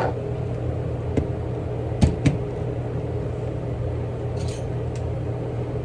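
Revlon One-Step hair dryer brush running: a steady motor hum with the rush of air, with two sharp knocks about two seconds in.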